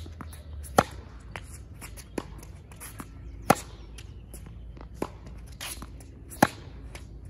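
Tennis rally on a hard court: racket strings striking the ball, with three loud hits from the near player about every three seconds and fainter ball bounces and return hits from the far end between them.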